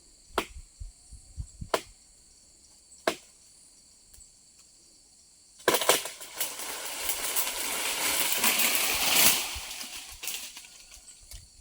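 Three sharp chopping strikes on wood, then a long crashing rustle of leafy branches coming down, which swells and fades over about five seconds. Insects buzz steadily until the crash.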